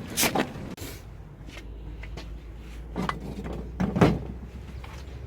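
Sharp clunks from under a lifted SsangYong Korando Sports: one right at the start, then two more about three and four seconds in, over a low steady hum. This fits the driveline knock when shifting into gear after stopping, which the owner traces to the propeller shaft.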